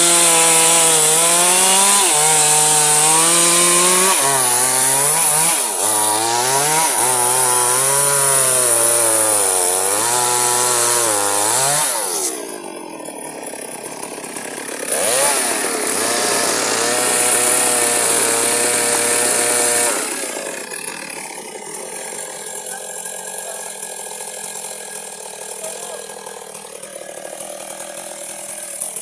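Electric chainsaw cutting firewood, its motor pitch sagging under load and picking back up again and again. About twelve seconds in it drops off, runs at a steady pitch for about five seconds, and from about twenty seconds in only a much quieter sound remains.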